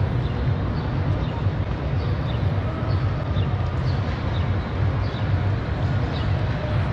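Steady low rumble of wind buffeting an action camera's microphone while walking outdoors, with faint light ticks about twice a second.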